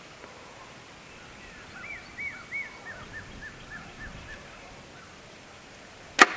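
A compound bow fires near the end with one sharp, loud snap of the string as the arrow is released. Before it, while the bow is held at full draw, a bird sings a quick string of about a dozen short chirps that fall in pitch.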